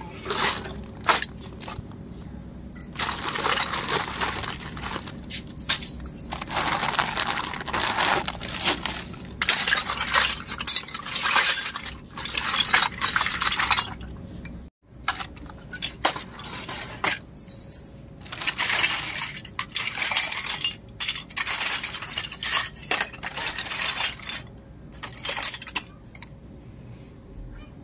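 Miniature stainless-steel toy pots, bowls and cups, mixed with small plastic kitchen toys, clattering and clinking against one another in repeated bursts of sharp metallic jangling.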